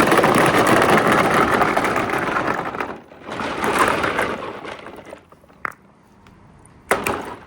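Marbles rolling and rattling down a four-tier slope marble run. The rolling swells twice and fades out about five seconds in, followed by two sharp clicks, the louder one near the end.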